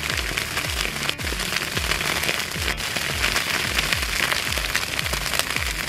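Dry grass and reeds burning, a dense steady crackling of the fire. Under it runs background music with a regular low bass beat.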